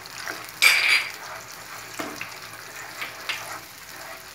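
Wooden spatula stirring and scraping a frying onion-and-spice paste in ghee around a nonstick kadhai, over a light sizzle. A sharp clatter of dishware about a second in is the loudest sound, with a few fainter scrapes later.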